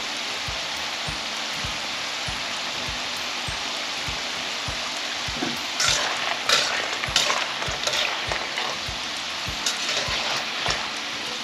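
Food frying in a hot pan with a steady sizzling hiss. From about halfway through it is stirred, with a run of short scrapes and clatters of the utensil against the pan.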